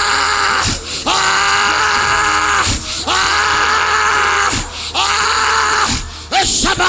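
A voice crying out in long, loud held shouts during fervent tongues prayer, about four of them with short breaks for breath, then shorter cries near the end.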